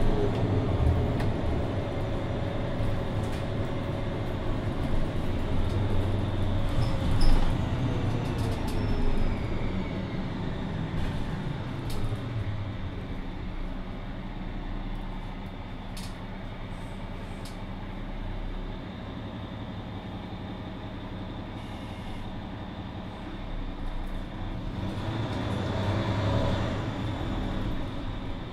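A 2020 Mercedes-Benz Citaro II city bus on the move, heard from inside: the diesel drive pulls with a whine that rises and falls in pitch, settles to a quieter steady run in the middle, and pulls harder again near the end. A few knocks and rattles come through.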